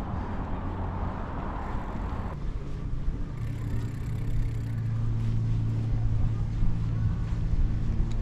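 Bicycle riding noise: tyres rolling along a path with wind rumbling on the microphone. A rougher, hissier tyre noise gives way abruptly after a couple of seconds to a smoother, lower hum.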